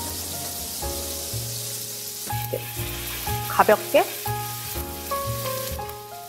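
Ravioli sizzling in foaming sage butter in a frying pan as they are stirred with a spatula and tossed, a steady hiss throughout. Two brief sharp squeaks come a little past halfway. Light background music of held notes plays underneath.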